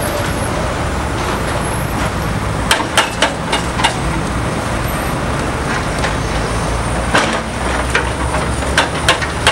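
Heavy diesel construction machinery running steadily, with a series of sharp clanks, several in quick succession about three seconds in and more near the end.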